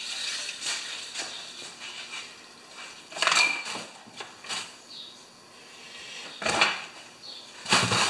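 Handling noise on a workbench: rustles and small clatters as lawnmower recoil-starter parts and a cardboard box are moved about. There are louder clatters about three seconds in, about six and a half seconds in and near the end.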